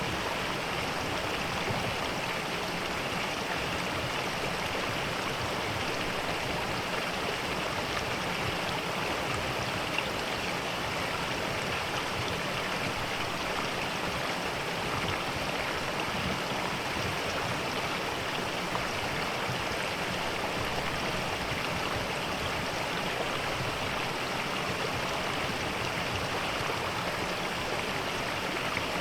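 Mountain stream rushing steadily over rocks in a forest valley, an even, unbroken water sound.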